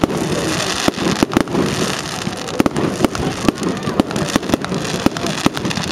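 Aerial fireworks bursting and crackling: a rapid, irregular string of sharp bangs and cracks over a constant crackling hiss.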